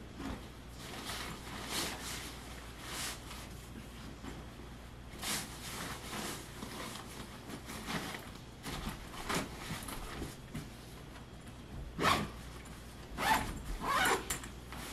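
A backpack zipper drawn in a series of short pulls, mixed with the rustle of clothes and the bag being handled as it is packed. The loudest pulls come in a quick run near the end.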